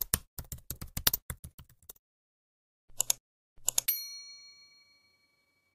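Subscribe-button animation sound effect: about two seconds of rapid keyboard typing, then two short mouse clicks, then a bell-like notification ding that rings out and fades.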